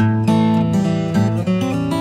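Background music: acoustic guitar playing chords, with a new chord struck right at the start.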